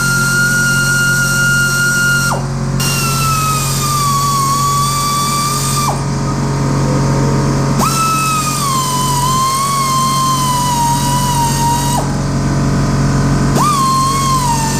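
Power tool motor whining in long runs, its pitch sagging slowly as it works. It stops twice and starts up again.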